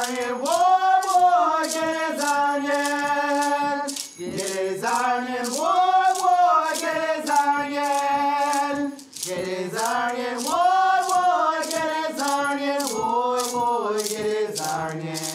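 A man singing a slow Vodou chant with long held, wavering notes and short breaks between phrases, over a rattle shaken in a steady beat.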